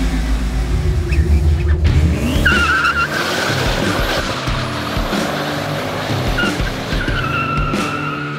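Chevrolet Camaro SS's V8 revving hard through a burnout, the rear tyres squealing about two and a half seconds in and again through the last two seconds.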